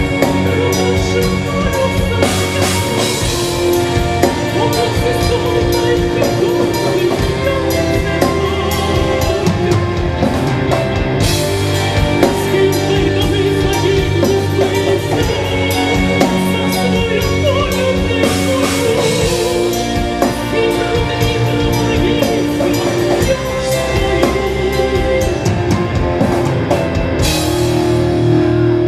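Rock band playing live, with drum kit and cymbals crashing over held chords.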